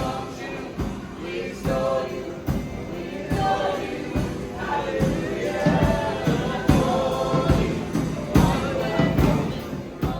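Background music: a song with choir-like singing over a steady beat.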